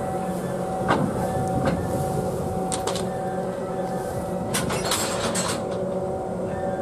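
EF63 electric locomotive standing with its onboard machinery running: a steady hum of several tones, with a few sharp clicks and a brief hiss about four and a half seconds in.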